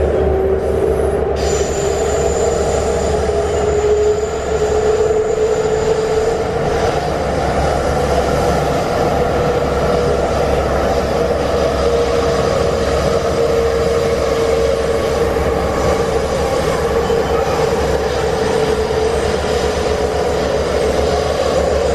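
Running noise inside a Wagonmash series 81 metro car: a steady rumble under a whine that rises in pitch over the first several seconds as the train gathers speed, then holds steady at cruising speed.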